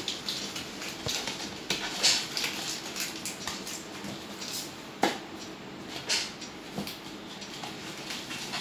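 Cats pawing and scratching at a cardboard box: irregular rustles, scrapes and knocks on the cardboard, with sharp knocks about two seconds and five seconds in.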